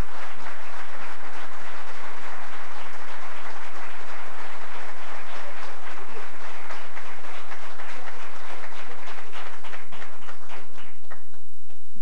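Audience applauding, a dense patter of many hands clapping that thins out into a few scattered claps and dies away near the end.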